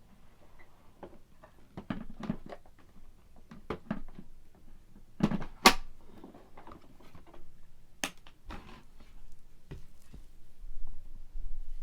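Scattered clicks, knocks and light thumps of things being handled, a dozen or so irregular strikes with one sharp click about halfway through.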